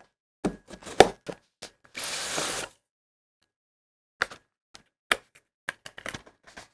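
A folding knife slitting the seal sticker on a cardboard phone box: a few sharp clicks and a short scrape. After a pause come light taps and knocks as the box is handled and its lid lifted off.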